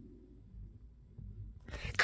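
Faint, low snoring of someone asleep, with soft speech starting near the end.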